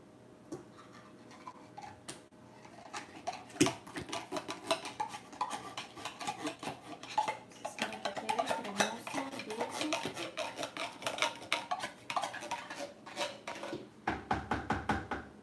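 A metal spoon clinking and knocking against a large plastic container while canned milk is poured and stirred into a banana drink, with a quick run of taps near the end.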